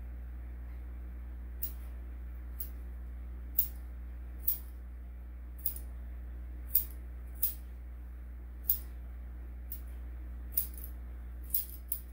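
Grooming scissors snipping a dog's coat: about a dozen short, sharp snips, roughly one a second at uneven spacing, over a steady low hum.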